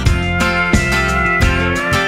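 Instrumental country music: guitars over a steady beat.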